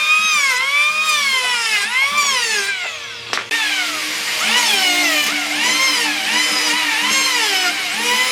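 Electric power tool whining as it cuts wood, its pitch dipping and recovering about once a second as the load comes and goes. About three seconds in it eases off briefly with a sharp click, then runs on.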